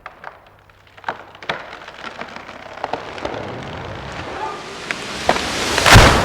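A large tree falling: the wood cracks and snaps several times, a rushing noise builds as the trunk comes down, and it ends in a heavy crash as the tree hits the ground.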